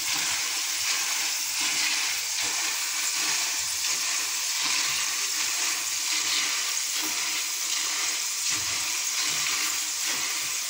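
Soaked chana dal deep-frying in hot oil in a mesh strainer: a steady, continuous sizzle of bubbling oil, the dal close to done but not yet crisp.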